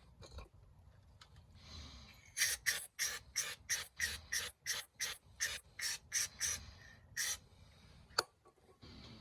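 Cleaning with degreaser: about a dozen short hissing strokes in a steady rhythm, roughly two and a half a second, followed by a single sharp click.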